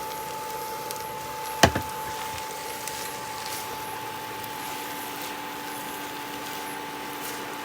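A spatula or spoon stirring food in a frying pan, with one sharp knock of the utensil against the pan about a second and a half in and a smaller one just after. A steady hum runs underneath.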